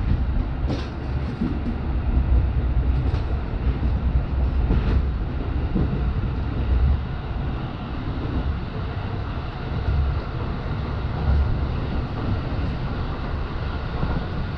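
Electric commuter train running on the rails, heard from inside the front car: a steady low rumble with a hiss above it, and a few faint clicks in the first few seconds.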